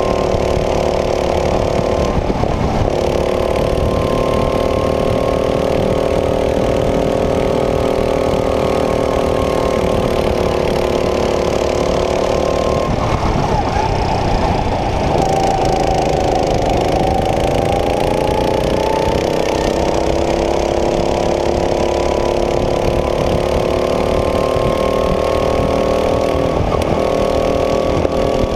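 Go-kart engine running hard on the track, a steady high-revving buzz. A little past the middle the pitch drops as the kart slows, then climbs back over several seconds as it accelerates again.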